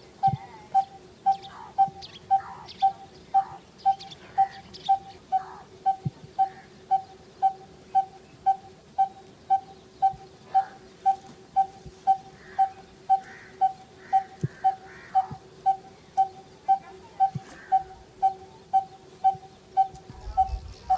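A bird calling one short low note over and over at a very even pace, about two and a half a second, with other birds chirping faintly.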